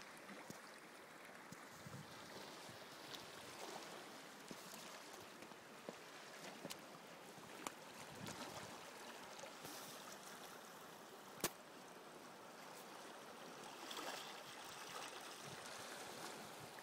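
Faint, steady trickling and lapping of shallow sea water among shore rocks. It is broken by a few small clicks, and one sharp click comes about two-thirds of the way through.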